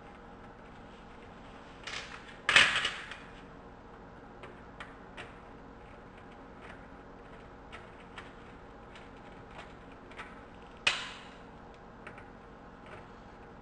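Hand tools and fasteners clicking and knocking against the plastic front grill as its bolts are taken out. There is a cluster of louder knocks about two and a half seconds in and one more sharp knock near the end.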